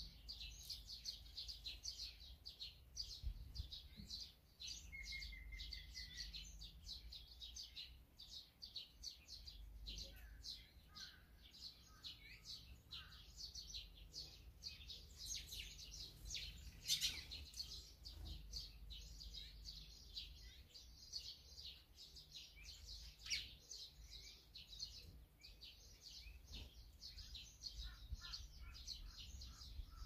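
Many small songbirds chirping without pause, short high calls overlapping throughout. A brief lower trill comes about five seconds in, and a run of lower repeated notes near the end, over a faint low rumble.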